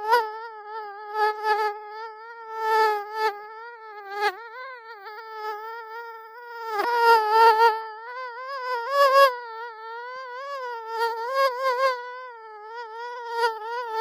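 Mosquito in flight: the high, thin whine of its wingbeats, a continuous hum whose pitch wavers slightly and whose loudness swells and fades again and again.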